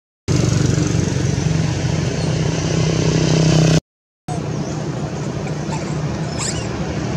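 An engine running steadily with a low pulsing hum. The sound drops out abruptly to silence for about half a second about four seconds in.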